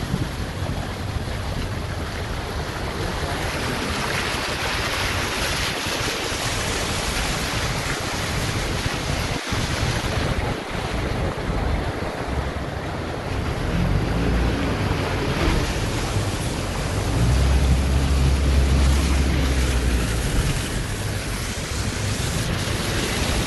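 A steady rush of water from heavy rain and floodwater, with wind buffeting the microphone; the low wind rumble swells for a few seconds about three quarters of the way through.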